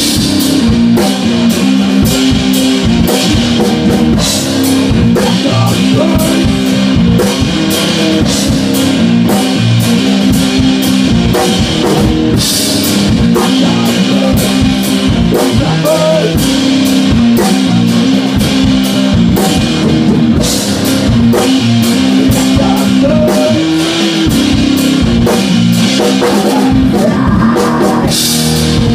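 Live rock band playing in a practice room: a drum kit beating steadily under an electric bass line, with a man singing into a microphone over them.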